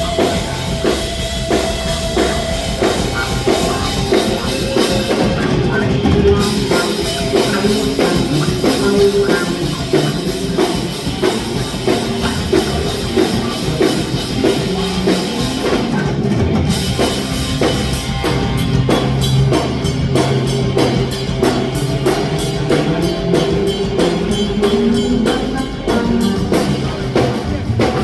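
Live rock band playing: a steady drum-kit beat with electric guitar.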